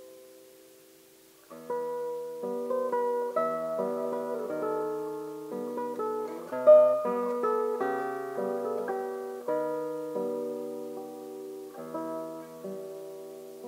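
Solo nylon-string classical guitar played fingerstyle. A ringing note dies away into a short pause, then about a second and a half in the playing resumes with a flowing passage of plucked notes and chords, with one sharply louder accent about halfway through.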